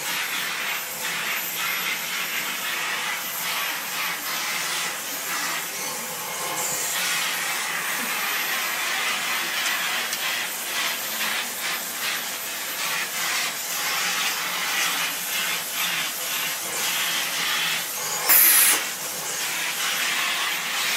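Vacuum cleaner running with a steady airy hiss that flutters and shifts as the nozzle is worked over a boxer dog's coat, with one brief, louder rush of air near the end.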